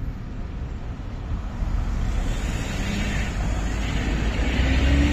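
Scania heavy truck pulling an empty car-transporter trailer approaching over road traffic, its diesel engine growing steadily louder. A faint rising engine note comes in near the end.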